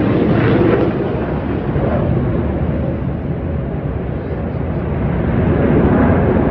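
Jet engine noise from Black Eagles T-50B aerobatic jets flying by: a loud, deep rushing sound that eases a little in the middle and builds again near the end.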